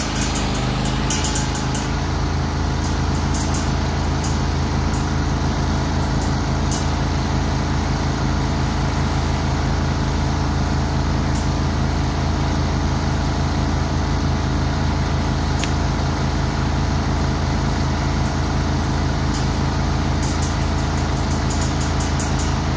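Zero-turn riding mower's engine running steadily, its note shifting slightly about two seconds in. Scattered sharp clicks and snaps sound near the start and again near the end.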